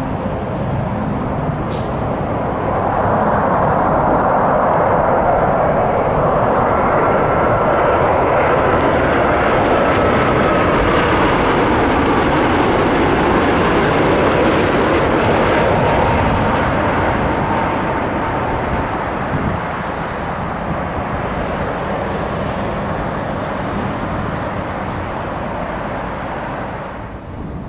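Boeing 787-8 Dreamliner on final approach with gear down, passing low overhead: the jet noise of its turbofan engines swells, is loudest as it goes over, then fades, with a faint whine sliding down in pitch as it passes.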